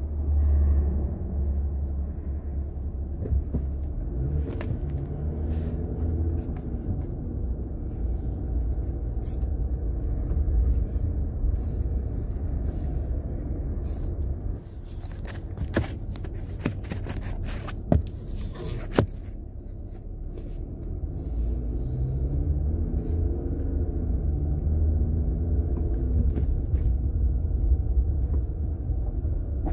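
Low engine and road rumble inside the cabin of a 2021 Jeep Wrangler two-door as it drives slowly. There are a few sharp knocks around the middle, and the engine note rises as it speeds up over the last third.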